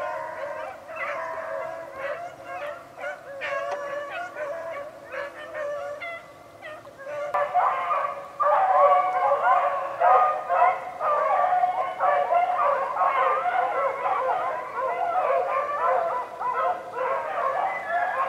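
A pack of beagles baying in full cry while running a swamp rabbit, many hound voices overlapping. The chorus dips briefly and then grows louder and fuller about seven seconds in.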